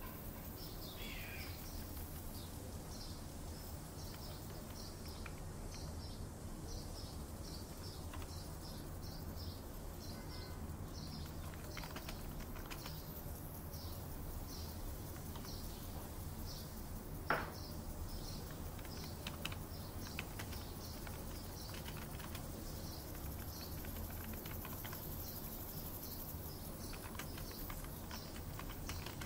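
Layered office-and-park ambience: a steady low hum under a short high chirp repeating about twice a second, with a falling bird call about a second in. Scattered computer-keyboard clicks come through the middle, the loudest a single sharp click just past halfway.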